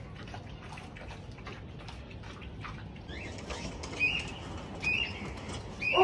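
Faint lapping of a dog eating from a metal bowl, then from about three seconds in, a flock of kites overhead giving four or five short, high whistling calls among the flutter of wings.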